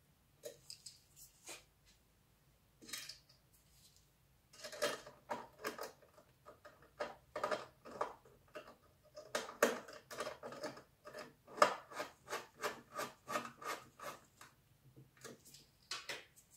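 Quick irregular runs of small clicks and taps, several a second, from hands handling an aluminium router enclosure and its small screws, busiest through the middle.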